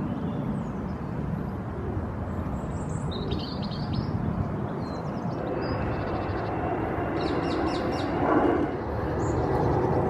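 Steady low rumble of distant city traffic, swelling briefly a little after eight seconds, with small birds' short high chirps about three seconds in and again in a quick run near the end.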